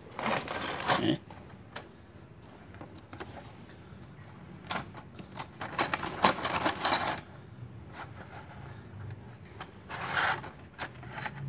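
Handling noise from a cardboard box of welding electrodes in plastic wrap: rustling and scraping as it is picked up and opened, with steel rods clinking as they slide out. It comes in bursts, busiest in the middle.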